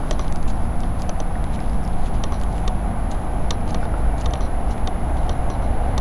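Steady low rumble of distant city traffic and trains, with scattered light clicks.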